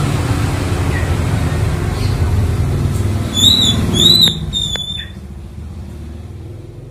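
Small Nagasaki hanging ceiling fan running with a steady low hum, which gets quieter after about five seconds. Three short high chirps come between about three and five seconds in.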